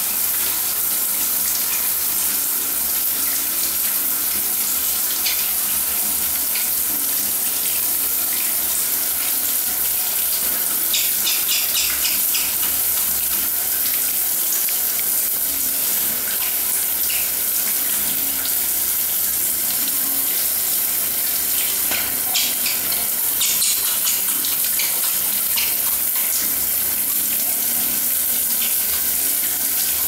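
Steady rain falling as an even, unbroken hiss of water, with a few short bursts of clicking around the middle and again later on.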